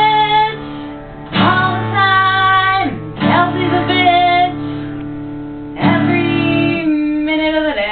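Acoustic guitar strummed one chord at a time, three fresh strums about two to three seconds apart, each left to ring, with a woman singing long held notes over them.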